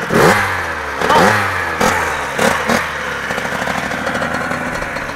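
85cc two-stroke motocross bike engines revving, with several quick rises in pitch as the throttle is opened in the first few seconds, then running more steadily.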